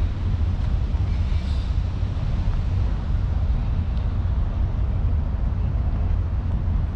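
Steady low outdoor rumble, deep and even, with a faint high chirp about a second and a half in.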